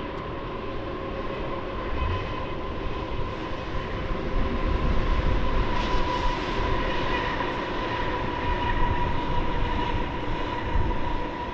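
Black Mesa & Lake Powell electric coal train passing, its wheels rumbling along the rails with a steady high whine. It grows louder toward the middle and eases slightly near the end.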